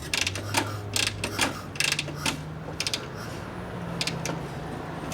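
Kick-start mechanism on a Harley-Davidson Sportster being worked, giving irregular ratcheting clicks: the kicker gear is slipping, for lack of spring tension. A low steady hum runs underneath and steps up in pitch about halfway through.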